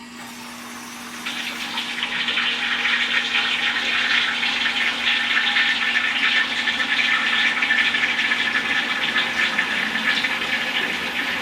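Water rushing into a drained gas water heater tank as it refills, a steady hissing rush that starts about a second in. Air and pressure are venting through the tank's open relief valve and its discharge pipe.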